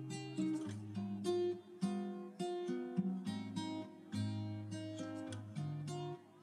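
Background music: an acoustic guitar playing a picked melody, one plucked note after another.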